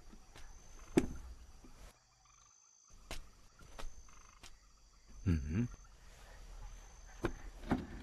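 Scattered knocks and taps from a wooden lacquered box being carried and set down on a table, the loudest about a second in, with two more close together near the end. About halfway through, a man's short hummed sound.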